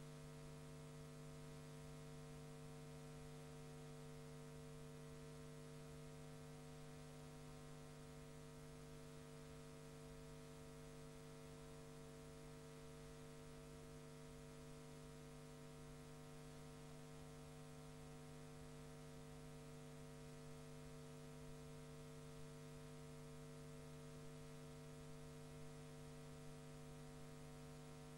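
Near silence: a steady electrical hum with faint hiss, unchanging throughout, with no sound from the play.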